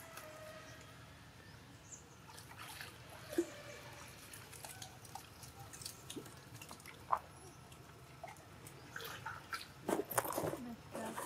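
Water splashing as macaques swim and paddle in a pool: scattered small splashes and drips, with a louder flurry of splashing near the end.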